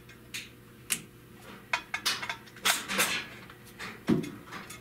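Hands working a wire connector loose from a sheet-metal cover in a car's engine bay: a string of irregular clicks and light metallic clinks, the loudest about three and four seconds in.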